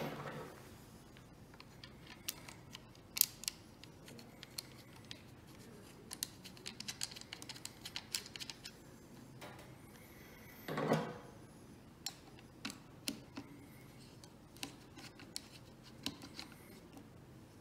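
Scattered small clicks and metallic ticks as a folding hex-key multi-tool is handled and worked on a bolt at an electric scooter's handlebar, with a brief louder bump about eleven seconds in.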